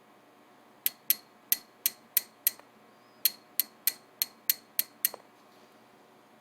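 Two runs of light, sharp metallic taps, about six and then about seven, roughly three a second: small metal parts being tapped and seated while pins are loaded into a Corbin Russwin interchangeable lock core.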